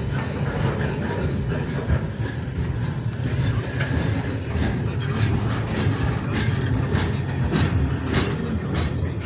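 A double-stack container train of well cars rolling past with a steady low rumble. Its wheels click over the rail joints, the clicks coming several a second and growing sharper from about halfway through.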